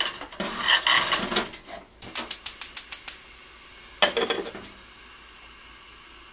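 Earthenware donabe clay pot scraping and clattering as it is set onto a gas stove's metal grate, then a gas burner's igniter clicking rapidly, about eight clicks in a second, as the burner is lit. The pot's ceramic lid then clatters briefly as it is set on.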